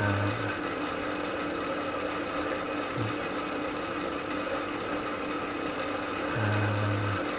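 Metal-turning lathe running steadily, its motor and gear train giving a constant hum of several tones, while the top slide is advanced by hand to index the next start of a multi-start thread. Short low hums come right at the start, briefly about three seconds in, and for nearly a second near the end.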